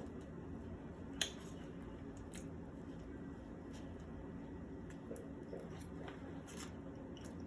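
A person eating quietly: soft mouth and chewing sounds with a few short sharp clicks, the loudest about a second in, over a faint steady room hum.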